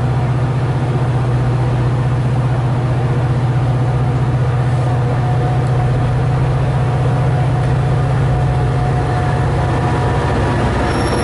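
Metra commuter train of stainless-steel bilevel cars rolling past, with a steady low diesel engine drone.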